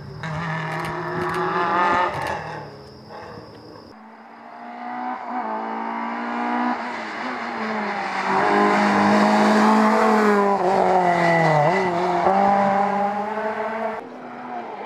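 Rally car engines revving hard. For the first few seconds a Peugeot 106 S16 revs and fades away. Then a Peugeot 106 Kit Car's naturally aspirated four-cylinder revs up through its gears, its pitch rising and dropping back at each shift, and it is loudest as it comes past.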